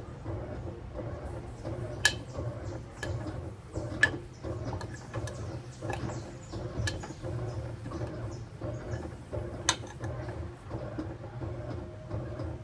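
Washing machine running a wash cycle: a steady motor hum with scattered sharp clicks and knocks, the loudest about two and four seconds in and again near the end.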